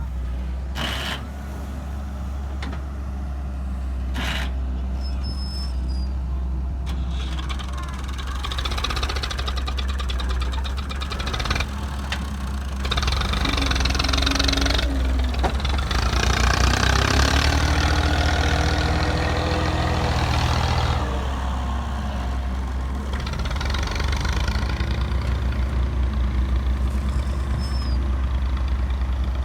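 Hydraulic excavator's diesel engine running, louder and rising in the middle as it works under load, with two sharp knocks about three seconds apart near the start.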